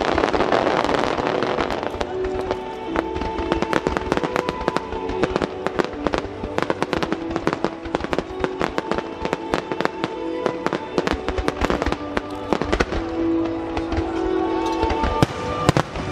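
Aerial fireworks shells bursting in a dense, rapid string of sharp pops and crackles, loudest as a rushing crackle in the first couple of seconds. Sustained music notes play underneath.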